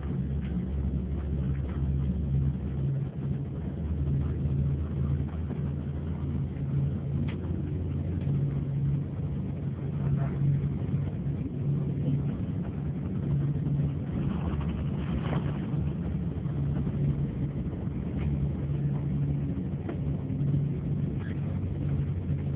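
Steady low engine drone and road noise heard inside a bus's passenger cabin as it drives along.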